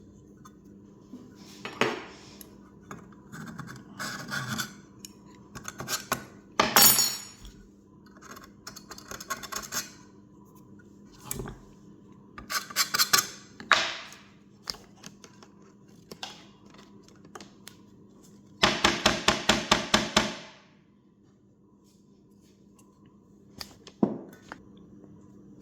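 A blade scraping leftover foam and adhesive off the edge of a speaker frame in short, scratchy strokes, broken by pauses, with a fast run of about ten strokes in quick succession about two-thirds of the way through.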